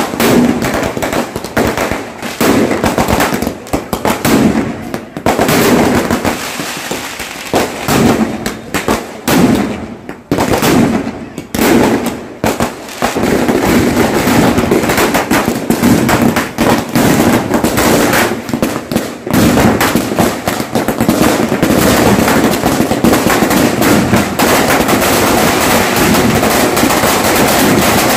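Firecrackers going off on the road: separate loud bangs with short gaps at first, then from about halfway a dense, unbroken rapid crackle of bangs.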